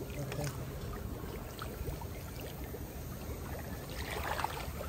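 Water sloshing and splashing in a shallow fish pond as a hand net is dipped and a person wades through it, briefly louder about four seconds in.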